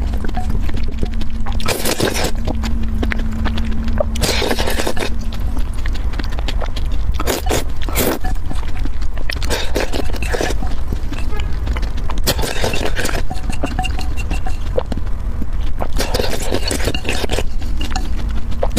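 Noodles in a tomato-and-egg sauce slurped up off chopsticks, in repeated slurps every two to three seconds, over a steady low hum.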